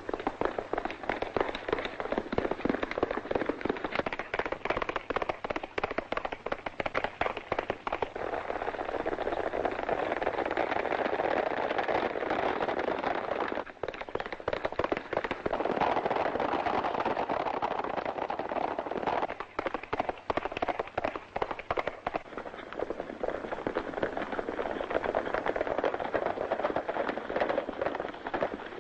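Hoofbeats of several horses galloping, a dense, steady patter, heard through the crackle of an old film soundtrack.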